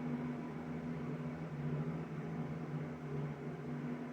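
Steady low mechanical hum with an even hiss behind it.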